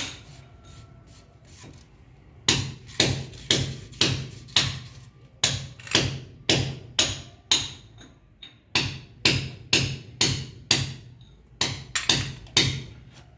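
Hammer blows struck in a steady run, about two a second, with a short break near the middle.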